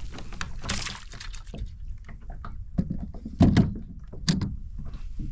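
Scattered knocks, clicks and clunks on and around a plastic kayak while a hooked bream is being landed. The loudest is a thud about three and a half seconds in, followed by a sharper knock just under a second later.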